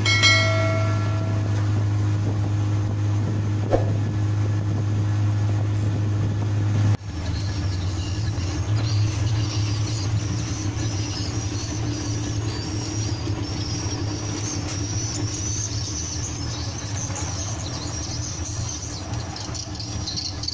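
Boat engine running steadily under way, a low drone. About seven seconds in it changes abruptly to a slightly different drone with more hiss.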